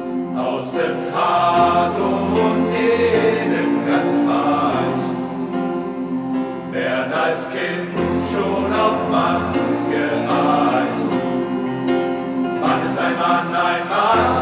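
Male choir of young men singing a full, multi-part choral passage, with piano accompaniment.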